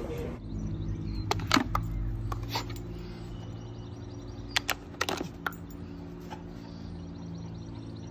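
Soft background music of held low tones, with a few sharp clicks around a second and a half in and again around five seconds in.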